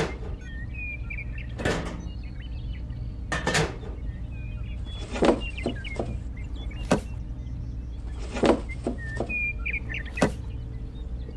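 A series of sharp knocks and clicks, some coming in quick groups of two or three, over a steady low hum.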